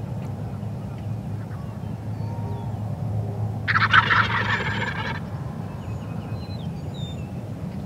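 A wild turkey gobbler gobbling once near the middle, a loud rapid rattling call lasting about a second and a half. Under it runs a steady low rumble, with a few faint high chirps.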